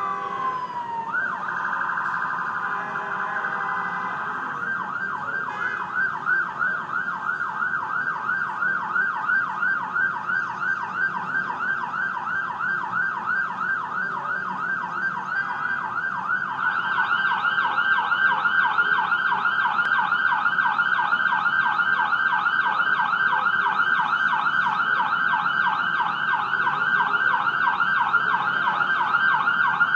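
Ambulance siren: a falling wail at the start, then a fast, even up-and-down yelp that goes on, getting louder about halfway through.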